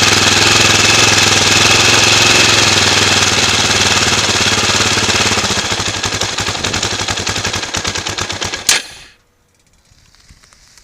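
A KTM LC4 640 single-cylinder four-stroke engine with an Akrapovic slip-on exhaust, running partly warm (40°C oil) with a little choke, with a fast staccato exhaust beat. After about five and a half seconds the firing slows and fades. A single sharp pop near the nine-second mark ends it as the engine dies away.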